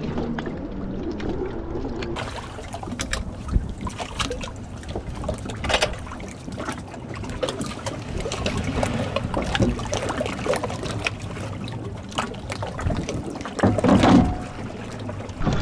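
Lake water lapping and sloshing around a person wading waist-deep beside a stand-up jet ski and its floating stand, with irregular small splashes and some wind. There is a louder splash near the end.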